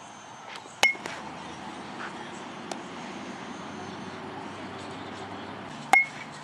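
Two sharp metallic pings of a metal baseball bat hitting a ball, about five seconds apart, each ringing briefly.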